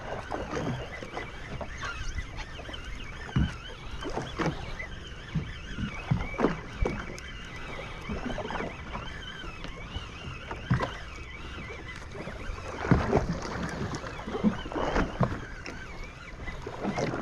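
Sea water slapping and splashing against the side of a drifting boat, in irregular slaps and knocks over a steady wash.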